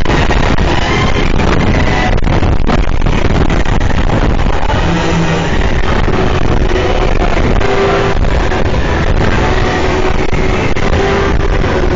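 Dark-ride soundtrack music playing over a steady, loud noise from the moving ride vehicle, with a few held notes standing out in the second half.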